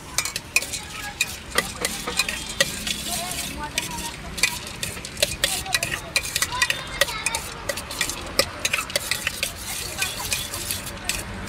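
A steel spoon stirring and tossing a bhel mixture of puffed rice in a stainless steel bowl: quick, irregular clinks and scrapes of metal on metal.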